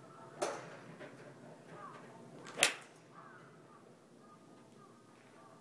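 Iron club striking a golf ball: one sharp crack about two and a half seconds in, the loudest sound here. A fainter, duller strike comes about half a second in, from another golfer on the range.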